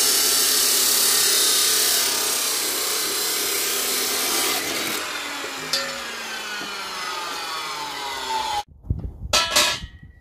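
Redstone abrasive chop saw cutting through square steel tube, a loud, harsh grinding. A few seconds in the cut ends and the spinning disc winds down with a falling whine. Near the end come a few sharp knocks.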